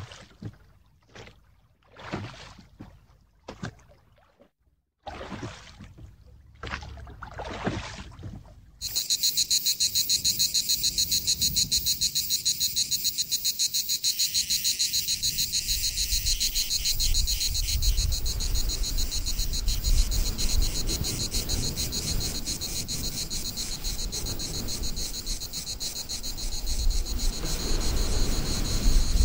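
Brief, separate swishes of water and wind around a small boat, then a loud cicada chorus that starts suddenly about nine seconds in and shrills steadily. A low rumble builds beneath it from about halfway and grows near the end: an approaching train.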